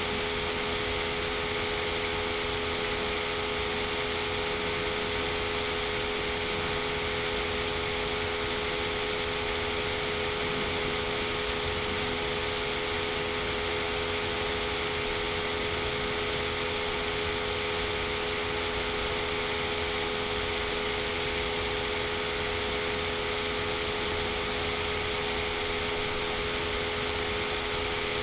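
Steady machine hum and hiss with a few constant tones, unchanging throughout.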